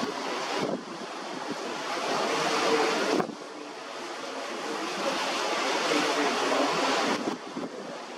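Rushing wind and water noise, with wind buffeting the microphone in rough weather. The sound swells and drops off abruptly three times.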